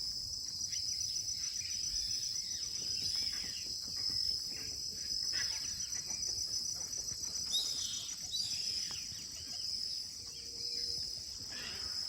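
A steady, high, fast-pulsing insect chorus, with many birds chirping and calling over it. A few sharp falling calls come a little past halfway.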